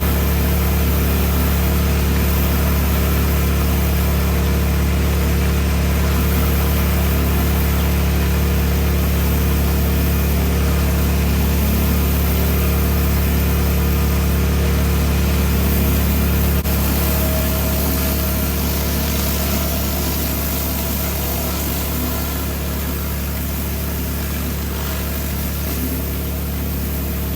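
Van-mounted pressure washer running steadily: the engine's even drone under the hiss of the high-pressure water jet cleaning courtyard paving.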